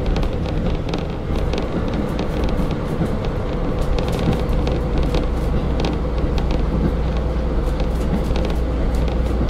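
KiHa 40 diesel railcar under way, heard from inside the car: a steady deep diesel drone with running noise from wheels and rails, and short clicks scattered throughout.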